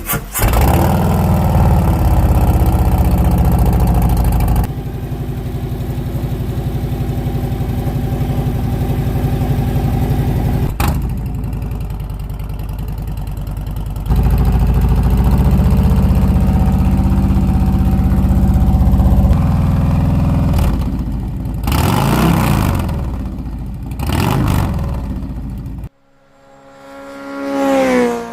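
Harley-Davidson Road Glide ST's Milwaukee-Eight 117 V-twin running through an upgraded exhaust, loud and steady, in several takes cut one after another. Near the end the revs rise and fall a few times, then the engine cuts off abruptly and a short swelling tone takes over.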